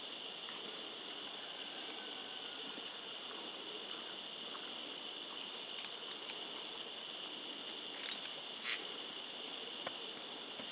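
Steady, high-pitched chorus of insects, such as crickets, droning without a break. A few brief knocks about eight to nine seconds in.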